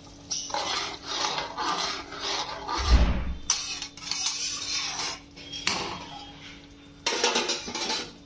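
Metal utensils scraping and clattering against a steel kadhai of curry, in several spells, with one heavy knock about three seconds in.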